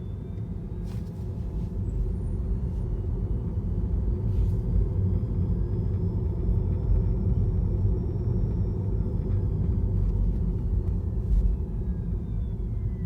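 Tesla Model 3 front drive unit whirring while driving, a thin high whine that rises in pitch as the car speeds up, holds, and falls again near the end as it slows. It sounds over a steady rumble of road and tyre noise, with a few short knocks from bumps in the road. The whirring comes only under drive and stops in neutral.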